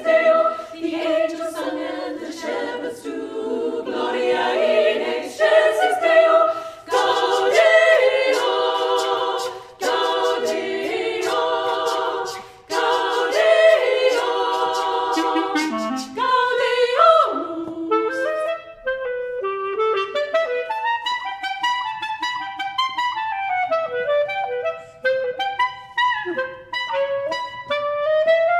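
Female choir singing in harmony. About seventeen seconds in the voices drop out and a solo clarinet takes over with quick, flowing runs up and down.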